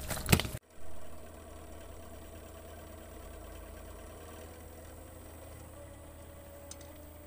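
A large fish thrashing in a cast net on the wet deck of a boat, with a few loud slaps and splashes that stop abruptly in the first half-second. After that, a steady low hum.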